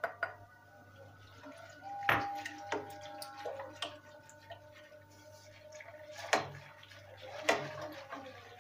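Milk being poured into a granite-coated cooking pot and whisked into sugar, starch and flour, the liquid splashing and the wire whisk clinking sharply against the pot a few times.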